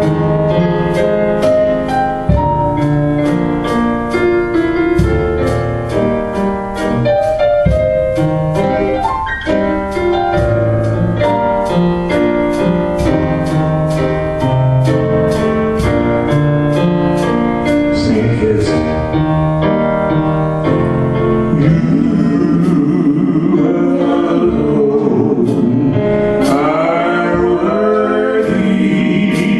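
Worship music: a keyboard playing sustained chords over a steady ticking beat of about two a second. A singing voice comes in about two-thirds of the way through.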